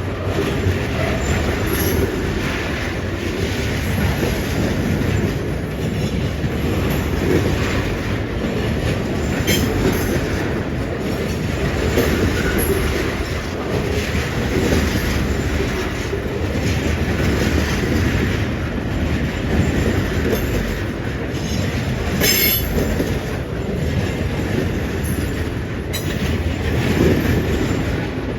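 Loaded tank cars of a long freight train rolling past: a steady rumble of steel wheels on the rails, with a couple of brief high wheel squeals.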